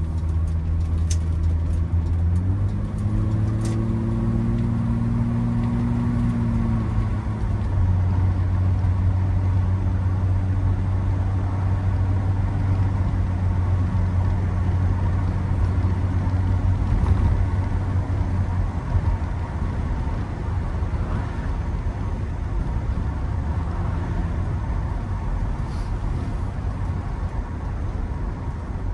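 BMW E30 325i's 2.5-litre straight-six heard from inside the cabin as the car accelerates and then cruises. The engine note steps up about two seconds in and climbs for several seconds. It drops at an automatic-gearbox upshift around seven seconds in, then holds steady under tyre and wind noise.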